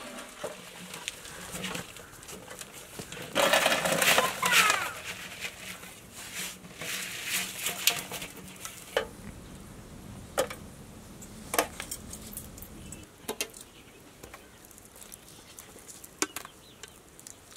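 A load of raw prawns tipped out of an aluminium basin onto a steel platter: a wet, rustling slide and clatter lasting a second or two, followed by scattered light clicks and taps as metal dishes and prawns are handled.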